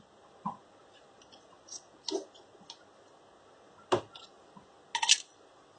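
Small sharp clicks and taps of a precision screwdriver and tiny screws against a smartphone's plastic cover as the screws are fitted, about four or five clicks a second or two apart.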